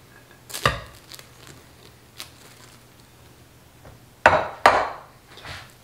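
A glass mixing bowl knocking against a stone countertop as it is handled and set down: a few sharp knocks, the two loudest close together about four seconds in.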